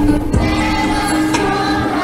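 Children's choir singing a Christmas song about the Nativity, with musical accompaniment.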